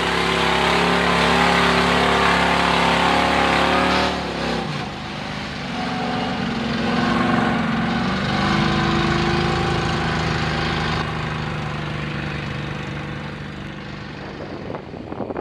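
V8 engines of lifted Chevy mud trucks running hard and loud. The first truck pulls through mud for about four seconds; then a second truck revs up and drives on, and its engine fades near the end.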